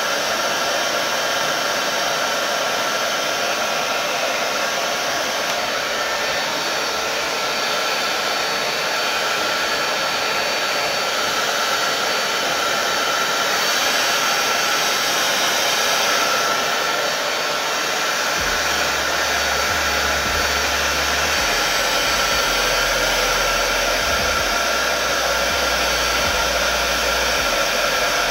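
Handheld hair dryer running steadily, a continuous rush of blowing air with a faint steady whine, a little louder partway through as it is moved around the head.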